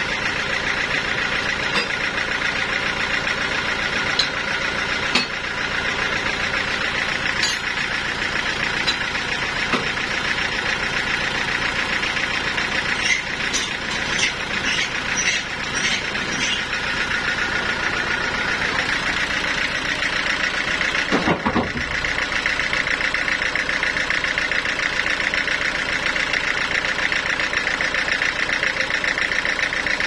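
Band sawmill running steadily with an even machine hum, with scattered light clicks and knocks, and one sharper thump about two-thirds of the way through.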